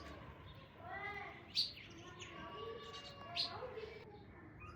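Several small birds chirping and calling over one another, with two sharp, louder chirps, one about a second and a half in and another near three and a half seconds.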